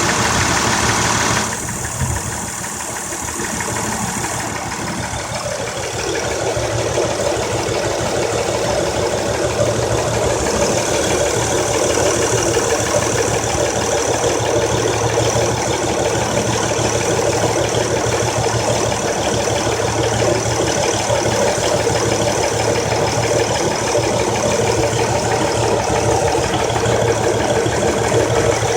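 2003 Honda Accord's 3.0L V6 idling with a misfire (random and cylinders 3–6 codes), caused by a dead-on-arrival new ignition coil. The sound changes about a second and a half in, then settles into steady running.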